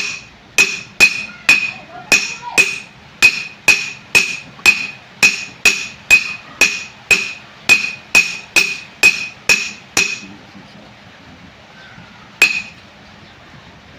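Hammer blows on metal, about two a second, each with a short metallic ring, as a bearing is driven into a diesel engine's gearbox. The steady hammering stops about ten seconds in, and one last blow follows a couple of seconds later.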